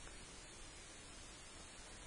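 Near silence: a faint, steady hiss with no distinct sound.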